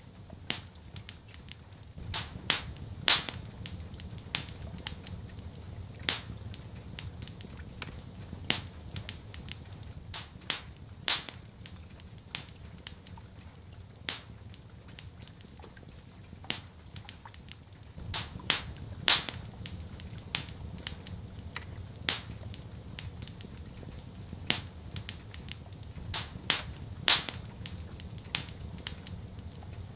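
Wood fire in a fireplace crackling, with irregular sharp pops, a few of them much louder, over a steady low rumble.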